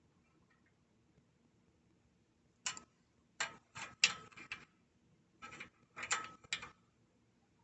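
Ratchet wrench clicking in short strokes as a nut is snugged up. After about two and a half seconds of quiet, there are several brief runs of ratcheting clicks over about four seconds.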